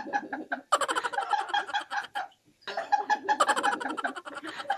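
Several people laughing and giggling through closed mouths held full of water, in stifled, fast-pulsing bursts. It breaks off briefly about halfway through, then starts again.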